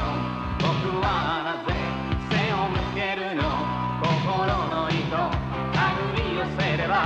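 A pop-rock song with a sung vocal over a steady band backing.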